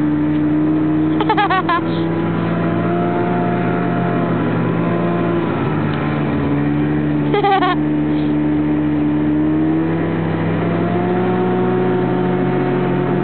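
Snowmobile engine running steadily at speed while towing riders, its pitch shifting a little. Two short shouts break in, about a second in and again about seven seconds in.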